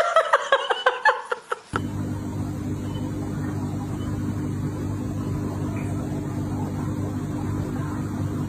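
Voices with sharp clicks for a moment, then a cut to a steady low mechanical hum with several fixed pitches.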